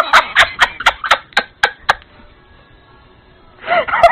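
A woman laughing in quick, sharp bursts, about four a second for the first two seconds, then a short vocal sound near the end.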